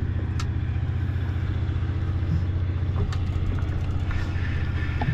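Boat engine running steadily at low speed, a low, even drone with a fast regular pulse.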